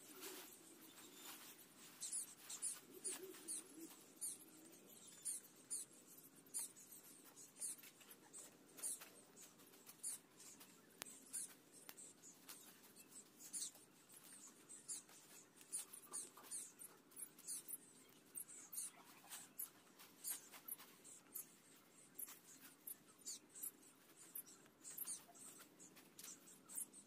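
Faint, uneven scratching and scraping strokes, one to three a second, thin and high-pitched.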